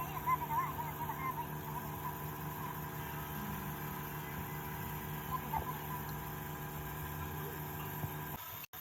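Steady mechanical hum made of several fixed tones, with a few faint wavering voice-like sounds in the first second and a half and a brief dropout near the end.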